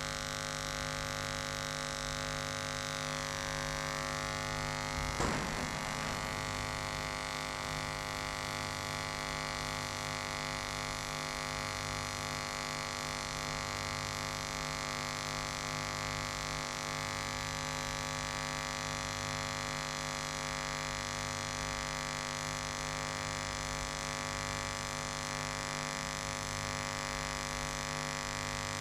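Pulsed TIG welding arc on stainless steel pipe, from a 200 amp EWM inverter set to a 70 Hz pulse frequency, giving a steady buzz. There is one short clack about five seconds in.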